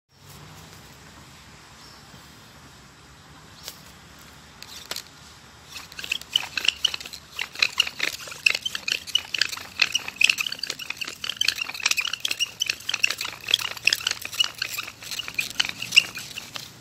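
Dense chatter of short, high-pitched animal calls, many per second, starting about six seconds in, over a faint steady hiss.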